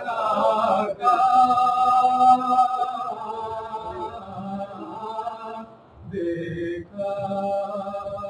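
A man chanting an Urdu marsiya unaccompanied into a microphone, drawing out long sustained notes, with a short break about six seconds in before the next line.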